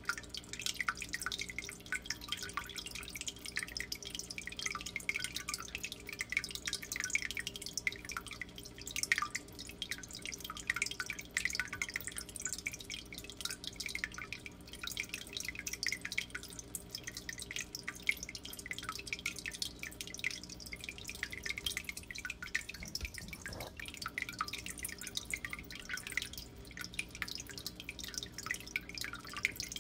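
Steady fast trickle and patter of dripping water over a constant low electrical hum.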